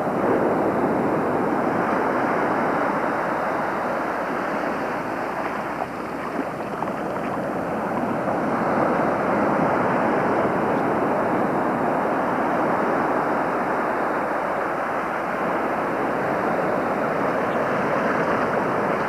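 Ocean surf breaking on the beach, a steady rushing noise that swells and eases slowly.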